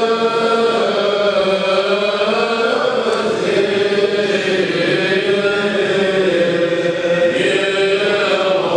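Group of men chanting an Eastern Orthodox liturgical hymn together, held notes moving slowly up and down in pitch.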